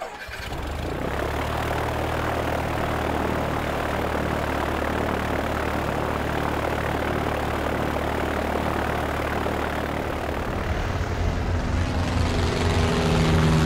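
Twin-engine turboprop airliner's engines and propellers running at takeoff power: a steady rushing noise over a low hum. About ten seconds in the hum turns throbbing, and it grows louder as the aircraft rolls down the runway for takeoff.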